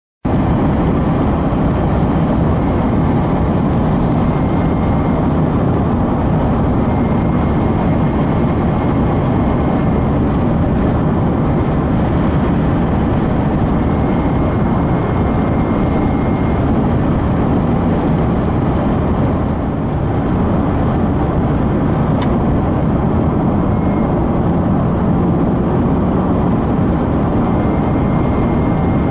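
Steady road and engine noise of a car driving at highway speed, heard from inside the cabin; it cuts in suddenly just after the start.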